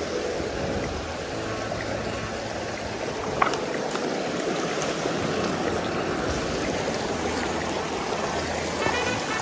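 Clear mountain stream rushing over rocks and small rapids, a steady flow of water. A single sharp knock comes about three and a half seconds in.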